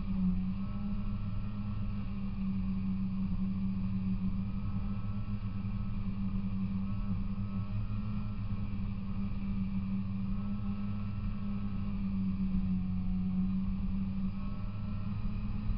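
Polaris Indy 340 snowmobile's two-stroke engine running steadily as the sled travels over snow, its pitch holding nearly level with small rises and dips.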